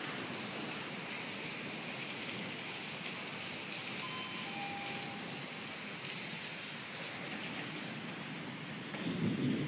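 Steady hiss of rain falling, with faint scattered ticks. A louder low rumble comes in near the end.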